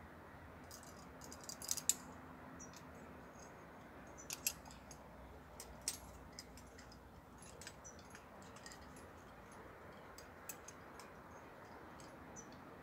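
Metal climbing gear, carabiners and quickdraws, clinking and jingling in short scattered bursts, loudest about two seconds in.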